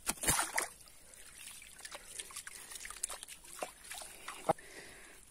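Water splashing and dribbling as a small fish is released by hand into still water: a burst of splashing at the start, then scattered small drips and splashes, with one sharper splash near the end.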